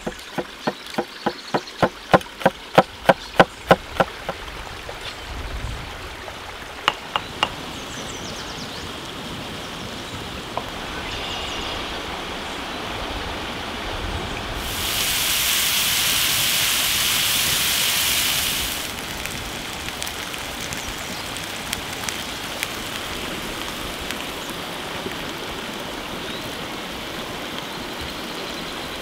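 A heavy blade chopping quickly on a wooden cutting board, about four strokes a second for the first few seconds, then a few single knocks. Under it a forest stream flows steadily, and in the middle a loud even hiss lasts about four seconds.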